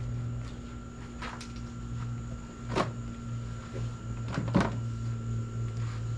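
Knocks and thumps of a portable inverter generator being turned around on a tabletop, with two louder thumps, one about three seconds in and one near four and a half seconds, over a steady low hum.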